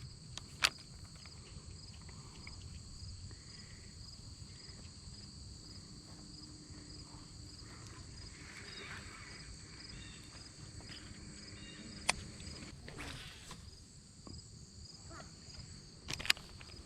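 Insects, crickets or the like, chirring steadily at a high pitch with a regular pulse, and a few sharp clicks standing out: one early, one about twelve seconds in and a pair near the end.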